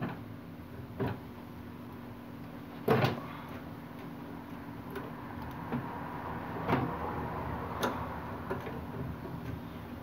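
Pliers clicking and scraping on a microwave oven's high-voltage capacitor as the wire connectors are worked off its terminals: a few scattered clicks and knocks, the sharpest about three seconds in.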